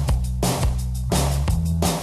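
Pop-rock band music in an instrumental stretch without singing: a steady beat over a held bass line.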